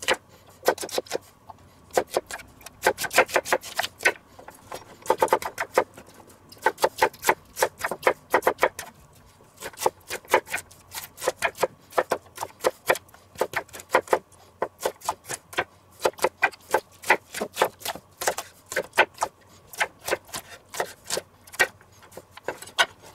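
Chef's knife chopping an onion on a wooden cutting board: quick runs of knocks of the blade on the board, broken by short pauses.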